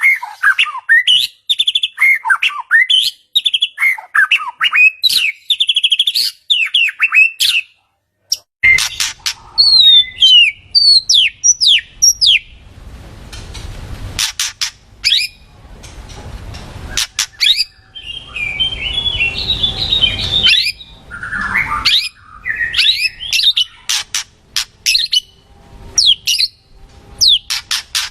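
White-rumped shama (murai batu) singing a loud, varied song of quick whistled glides and trills mixed with harsh chattering notes. There is a brief break about eight seconds in.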